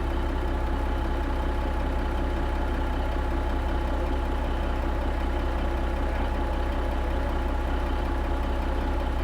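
Kenworth K100 cabover truck's diesel engine idling steadily through a newly installed 8-inch miter-cut exhaust stack.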